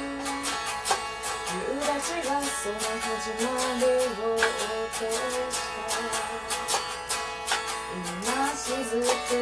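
A woman singing a melody while strumming an electric guitar in a steady rhythm.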